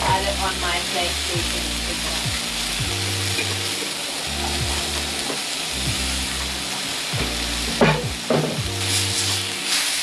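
Scallops searing in a very hot oiled frying pan: a steady sizzle, with a spatula stirring them and minced garlic going into the oil. Background music with a steady bass line plays underneath.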